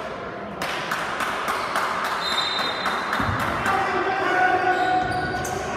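Basketball bouncing on a gym floor, a series of echoing knocks, with a brief high squeak a little over two seconds in and voices in the hall behind.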